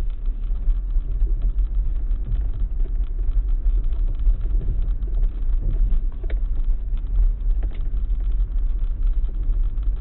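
Steady low rumble inside an Audi Q5's cabin as it crawls over a rough, rutted dirt track, from its tyres and suspension on the broken surface. A few sharp knocks or rattles stand out past the middle.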